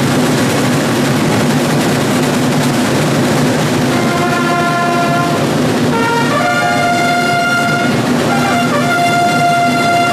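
Massed parade side drums rolling, joined about four seconds in by a fanfare of herald trumpets playing long held notes that change pitch twice.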